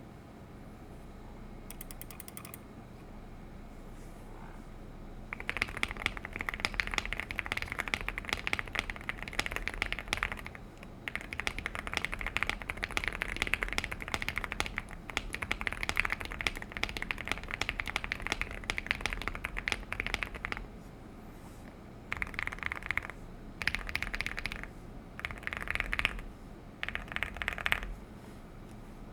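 Typing on a Womier SK75 mechanical keyboard with Akko Rosewood switches, tape-modded and foamed for a deep, thocky sound. The typing is fast and continuous for about fifteen seconds, then comes in short bursts with pauses near the end.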